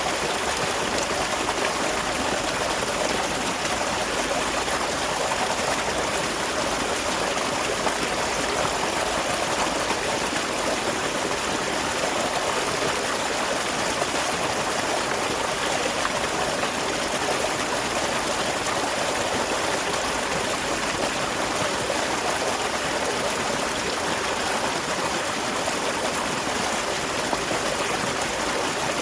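Small waterfall splashing and flowing steadily, a continuous rush of water with no breaks.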